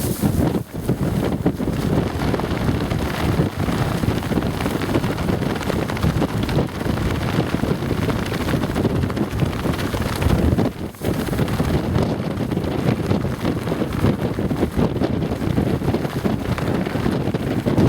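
Strong windstorm gusts buffeting the microphone, with wind pants flapping rapidly in the wind. The rush briefly drops twice, about a second in and about eleven seconds in.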